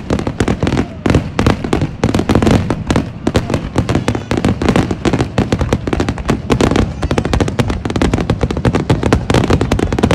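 Aerial fireworks bursting in a dense, continuous barrage, many bangs a second with no let-up.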